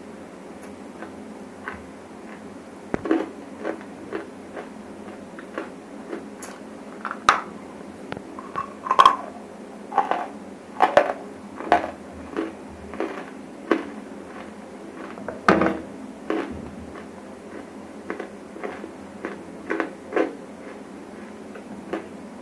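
Close-miked crunching of dry grey clay chunks in the mouth: irregular sharp crunches, loudest around the middle and again about two-thirds in.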